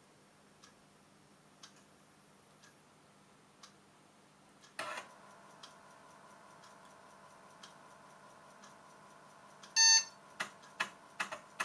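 Schneider Euro PC, an 8088 keyboard computer, switched on with a click about five seconds in, then a faint steady hum. Near the end its speaker gives a single short beep, the normal power-on beep with no CMOS error beeping now that the dead backup accumulator has been replaced, followed by a quick run of clicks.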